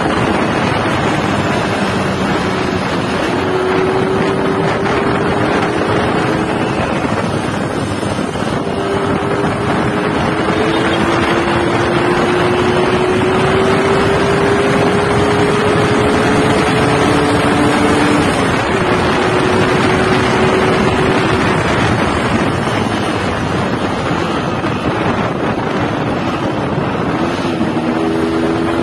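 Yamaha RX-King two-stroke single-cylinder motorcycle engine running under way through its catalytic-converter muffler. Its note climbs slowly and drops back several times. Heavy wind buffets the microphone.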